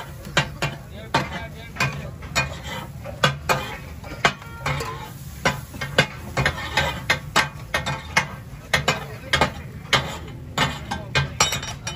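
Metal spatula clacking and scraping against a large flat tawa griddle as the cook chops and turns fish for katakat, with sharp irregular clacks about two to three a second.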